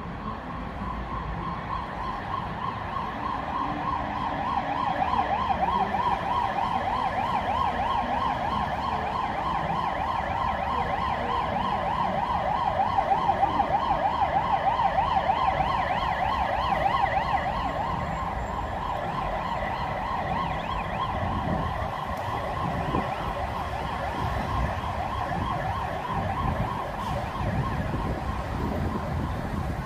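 Emergency vehicle siren with a fast-wavering tone over traffic rumble. It grows louder to a peak about halfway through, then fades as it passes.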